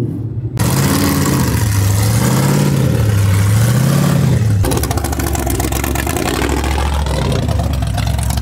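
Pickup truck engines revving up and down again and again over a loud hiss. The sound changes abruptly about half a second in and again around four and a half seconds in.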